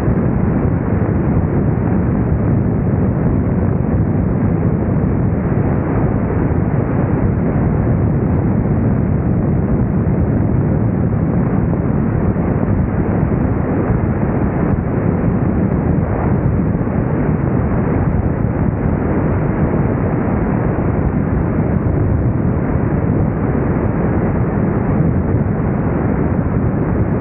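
Loud, steady rush and buffeting of airflow on a camera mounted on the wing strut of a CubCrafters Carbon Cub FX-3 in flight, with the light airplane's engine and propeller noise mixed in.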